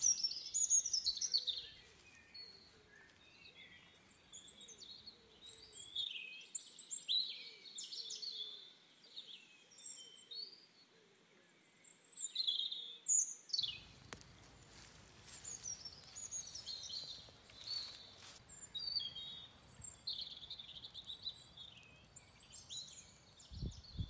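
Wild birds chirping and calling, with many short high notes and quick whistles, some sliding downward in pitch, scattered through the whole stretch.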